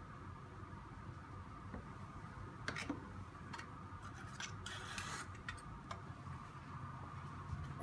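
Small clicks of glass bottles knocking against a plastic rack and each other, with a short crinkle of aluminium foil being pressed over the bottle tops about midway, ending in a sharper knock.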